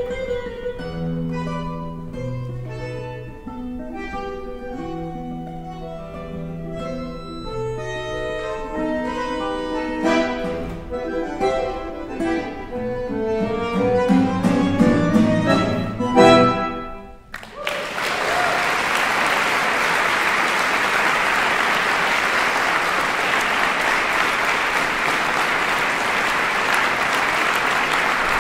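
Bandoneon and classical guitar duo playing the closing bars of a milonga, ending on a loud final chord about two-thirds of the way through. Audience applause follows at once, steady until the end.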